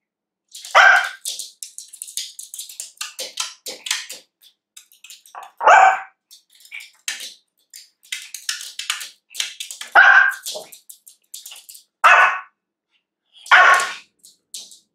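Pomeranian puppy barking at a treat it cannot reach on a chair seat, five short barks spread a few seconds apart. Rapid light clicks and scratches come between the barks, the puppy's claws on the chair and floor.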